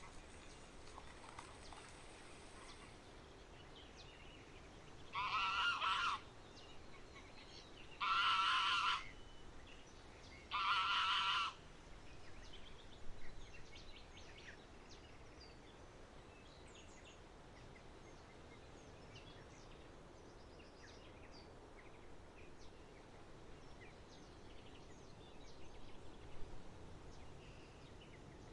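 Large waterfowl honking three times, each call about a second long and a couple of seconds apart, over a faint outdoor background with small birds chirping.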